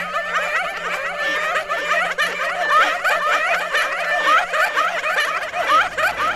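Horror sound-design layer of many overlapping high, quick chattering and giggling voices over a steady low hum. A low pulsing sound comes in near the end.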